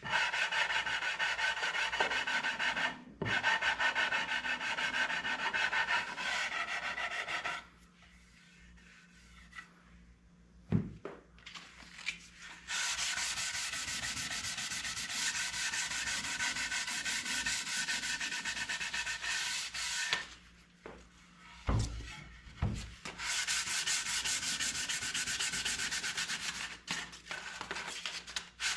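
Sandpaper sanding wood in long steady stretches, broken by short pauses. A few dull wooden knocks fall in the pauses.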